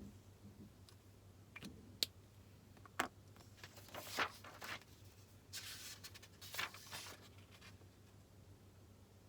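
Faint desk sounds of studying: a few light clicks or taps in the first three seconds, then two spells of scratchy rustling of paper and stationery, the second one about six seconds in.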